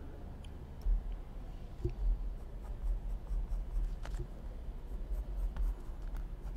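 Pencil scratching across sketchbook paper while drawing, with a few faint clicks.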